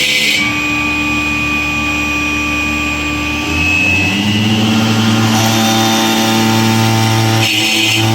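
Multi-head CNC stone cutting machine running with a steady motor hum. About four seconds in, a motor spins up, its pitch rising and then holding as a louder, steady whine. A short hiss comes near the end.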